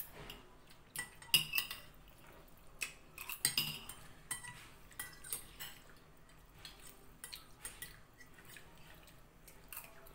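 Metal forks and spoons clinking and scraping against ceramic plates as people eat, in irregular light clinks, a few louder near the start.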